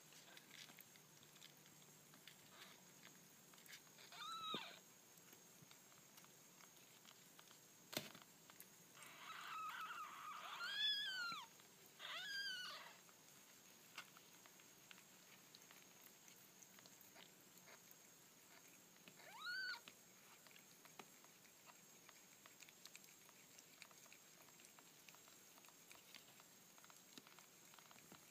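Newborn kittens mewing: about five short, high-pitched calls, each rising then falling in pitch, with one early, a cluster of three near the middle and one more later. A single sharp click about eight seconds in.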